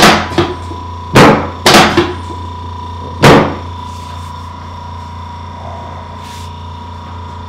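About six sharp, loud thuds of chiropractic adjustments on the treatment table in the first three and a half seconds, a couple of them in quick pairs. After them only a steady electrical hum remains.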